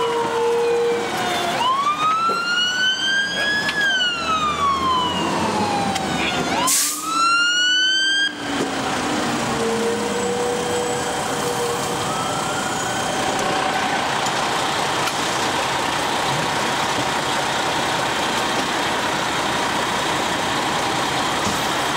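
Fire engine siren wailing in long rising and falling sweeps, then cutting off sharply about eight seconds in, leaving steady vehicle and road noise.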